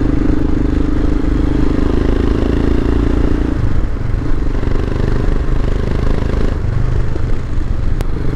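Royal Enfield Himalayan's 411 cc single-cylinder engine running steadily as the motorcycle is ridden on the road. The engine note changes about three and a half seconds in.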